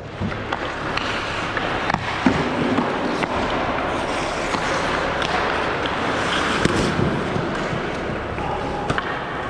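Ice hockey play: skates scraping the ice and sticks and puck clacking in sharp knocks.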